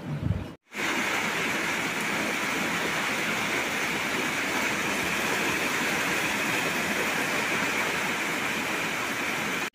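Steady rain falling, an even hiss that starts about half a second in and keeps up unchanged.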